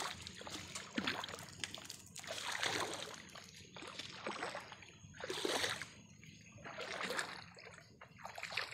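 Footsteps wading and splashing through shallow water, one slosh about every second and a half.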